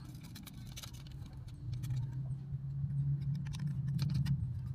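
Small screwdriver clicking and scraping in a screw on the plastic body of a toy RC bulldozer, a few light ticks at a time. Under it a steady low hum that gets louder about two seconds in and eases off near the end.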